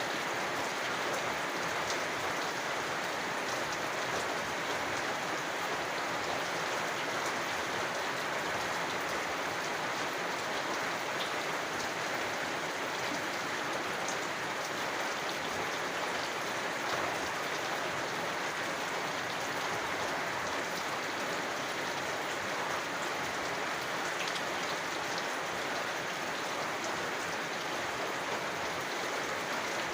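Steady rain falling: an even, dense hiss of raindrops with faint drop ticks here and there.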